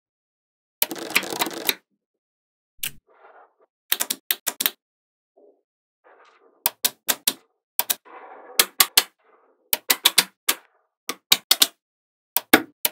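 Small magnetic balls clicking sharply as they snap together, singly and in quick runs of two to four, with a few short scraping noises between the clicks.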